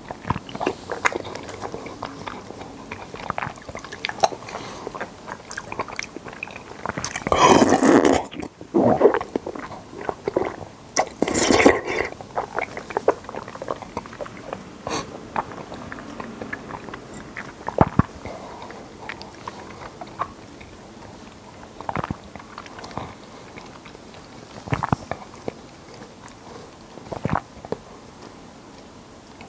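Close-miked mouth sounds of a person drinking and chewing konjac jelly drink: wet sips, chews and swallows scattered throughout. Two louder, longer sips come about seven and eleven seconds in.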